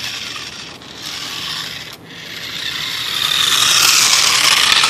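Toy RC car's electric motor and gear train whirring as it drives, with a scraping hiss. It dips briefly twice early on and builds to its loudest near the end.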